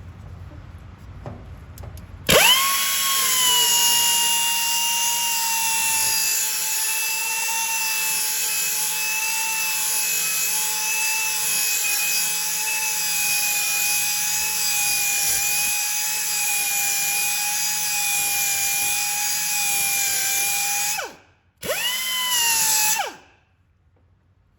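Belt grinder sharpening a lawn mower blade: the grinder starts suddenly about two seconds in and runs with a steady whine and a grinding hiss, winds down after about 20 seconds, then is run again briefly for a second or so before stopping.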